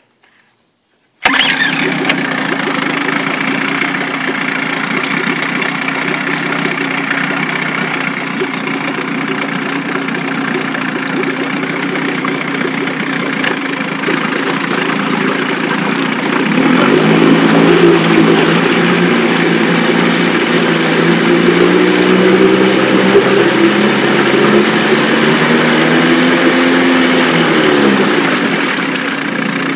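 2001 Johnson 8 hp two-stroke twin outboard starting about a second in and running steadily in a water test tank. About halfway the revs rise and waver as the propeller churns the water, then drop back near the end.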